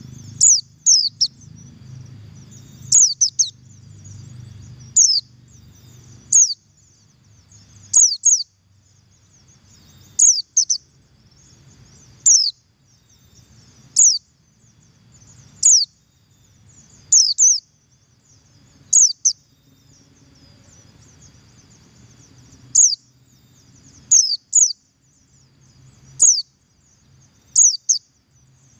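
Oriental white-eye (pleci buxtoni) giving its double call: short, sharp, high notes slurring downward, in groups of two or three, repeated every couple of seconds.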